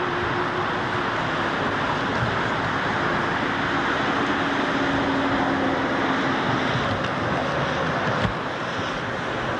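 Steady rush of traffic and car noise heard from a car, with a faint engine hum in the middle and a short knock about eight seconds in.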